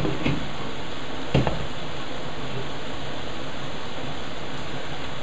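Steady hiss of a pot of pasta boiling and mushrooms and ham frying on a gas hob, with a faint knock just after the start and a single clink about a second and a half in as the glass lid is set on the steel pot.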